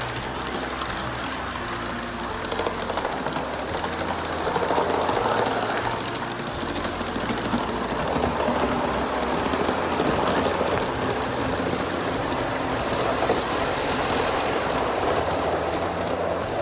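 Aster live-steam model of the BR 96 Mallet compound locomotive running with a train of freight wagons: steady steam hiss and exhaust with rapid clicking of wheels on the track, a little louder from about four seconds in.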